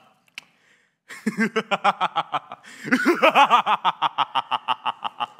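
A man laughing a gloating villain's laugh: a run of quick ha-ha pulses, about seven a second, starting about a second in, which grows louder and higher in pitch about halfway through.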